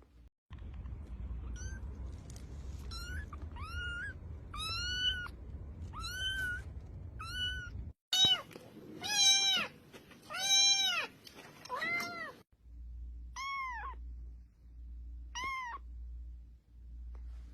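Domestic cat meowing over and over, about a dozen separate rising-and-falling meows. The loudest and longest come in the middle stretch, and two spaced-out meows follow near the end.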